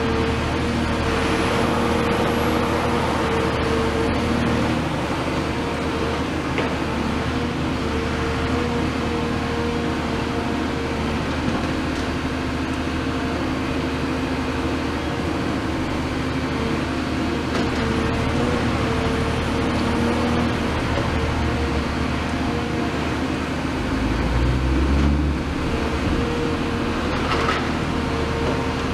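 Caterpillar 336F excavator's Cat C9.3 diesel engine running steadily under working load, with a steady hum whose pitch wavers slightly as the long-reach demolition arm is worked. Near the end a brief low rumble swells and fades.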